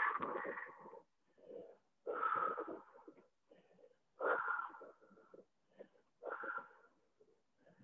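A person breathing hard through a deep forward-fold hamstring stretch: four loud exhales about two seconds apart, each strongest at its start and fading over about a second.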